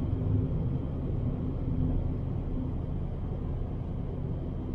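Steady low engine and road rumble inside the cabin of a Fiat Bravo 1.6, driving at an even pace along a snow-covered road.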